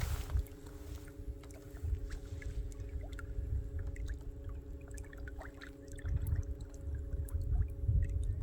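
A boat motor humming steadily under way while trolling, with wind rumbling on the microphone and scattered small water splashes and clicks.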